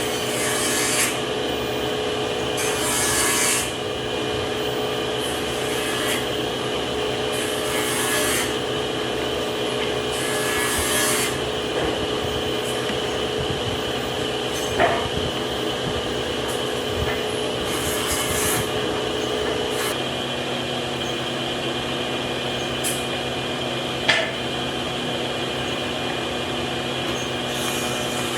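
Wood being worked with an abrasive tool in repeated rubbing strokes every two to three seconds, over the steady drone of a running machine. Two sharp knocks stand out, about halfway through and near the end.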